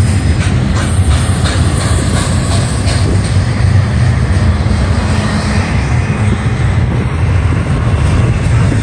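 Double-stack intermodal freight train's loaded well cars rolling past at close range: a loud, steady low rumble of wheels on rail, with scattered light clicks.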